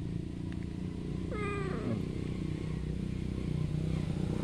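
A tabby cat with a severe fungal skin infection gives one short meow, falling slightly in pitch, about a second and a half in, over a steady low hum.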